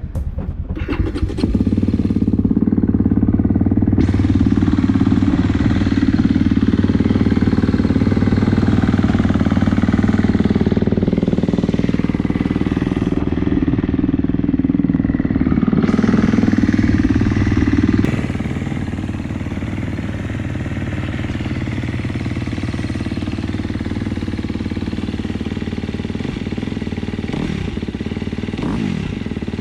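2019 KTM 250 SX-F dirt bike's single-cylinder four-stroke engine breathing through an FMF Factory 4.1 full exhaust. It starts in the first second or two and runs fast and loud, then drops to a lower, quieter idle about eighteen seconds in. It started readily after sitting for a while.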